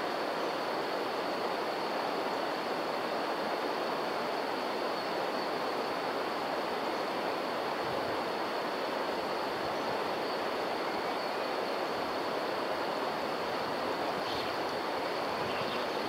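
Steady rushing of water at an even level, with a thin high steady tone over it.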